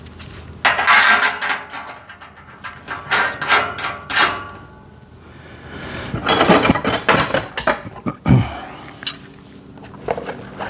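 Metal parts of a steel parts-storage rack clinking and clattering as they are handled and fitted together during assembly, in three bouts of clinks.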